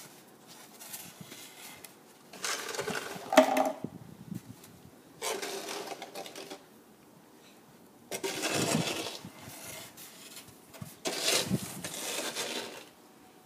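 A child's snow shovel scraping over a concrete driveway in four long pushes, each lasting a second or two, with a sharp knock about three and a half seconds in.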